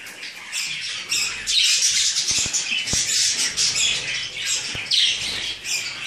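A room of caged pet parrots, budgies and cockatiels, calling together in a continuous high-pitched chattering and screeching that grows louder about a second in. A few light clicks sound near the middle.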